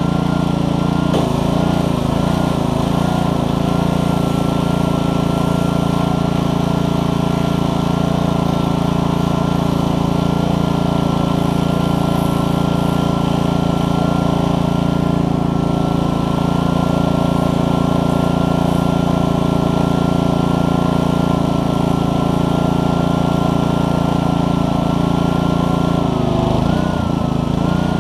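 Honda GCV160 single-cylinder engine running steadily, driving a Troy-Bilt pressure washer's pump as water sprays from the wand. A higher whine above the engine note wavers briefly near the start and again near the end.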